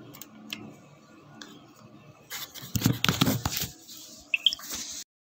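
Field sound of tsunami floodwater rushing through with debris: a low wash with scattered knocks, a louder surge of noise and knocking about two and a half seconds in, and a short high chirp near the end, then the sound cuts off suddenly.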